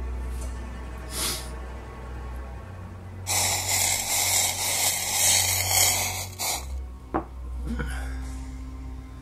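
A man breathing hard against the burn of a super-hot chili pepper: a short sharp breath about a second in, then a loud, forceful blow of breath lasting about three seconds, and a sharp click soon after, over steady background music.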